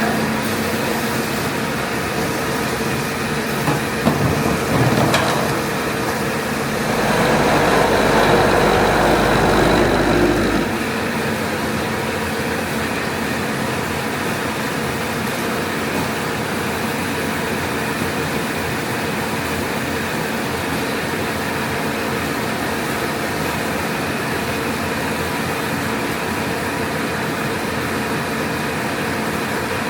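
ATR-320B automatic turret rewinder running steadily at production speed. A few clicks come about four to five seconds in, and a louder rushing stretch with a low rumble lasts from about seven to ten seconds in before it settles back to the steady machine noise.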